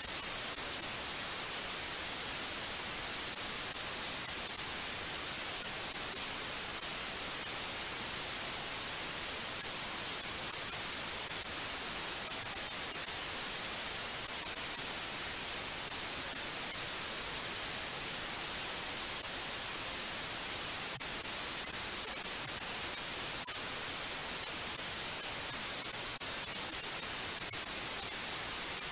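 Steady white noise: an even, unbroken hiss that is strongest in the treble.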